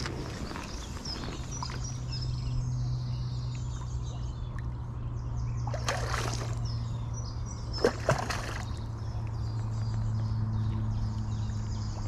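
Water splashing twice, about six and eight seconds in, over birdsong and a steady low hum.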